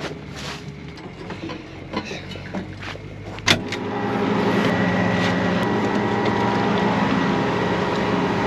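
A few light clicks and knocks, then a sharp click about three and a half seconds in, after which a farm machine's engine comes up and runs steadily.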